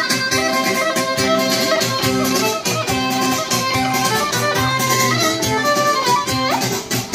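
Live Greek island folk dance music: a violin plays a melody over a strummed laouto, with a steady dance beat.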